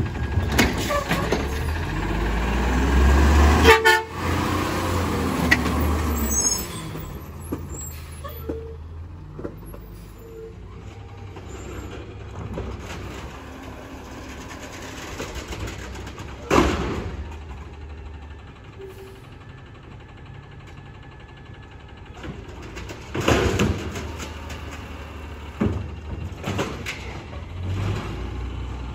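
Automated side-loader garbage truck's diesel engine running loudly, its pitch rising and falling as it pulls away. It then drops to quieter street sound from a garbage truck working farther off, with several sharp bangs in the second half.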